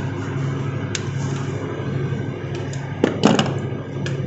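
Small clicks and knocks of a wire being handled and fitted among plastic contactor terminals on a control-wiring board, the loudest a quick pair just after three seconds in, over a steady low hum.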